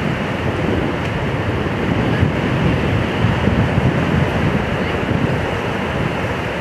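Strong wind buffeting the microphone, a loud steady rumble, over choppy lake waves washing onto a sandy shore.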